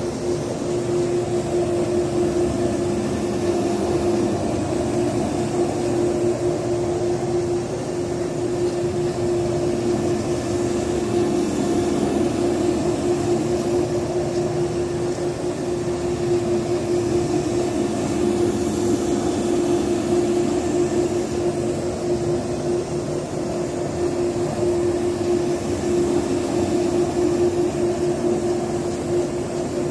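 Rotary extraction carpet cleaner scrubbing carpet, its rotating head driven by an electric motor at 650 scrubbing passes per minute while the vacuum hose sucks up water. It makes a steady drone with a constant hum.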